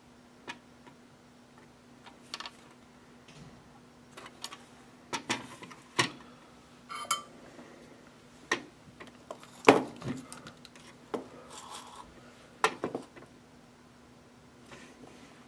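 Light clicks and clatter of small hand tools and parts being picked up and set down on a workbench, the sharpest knocks about ten and thirteen seconds in, over a faint steady hum.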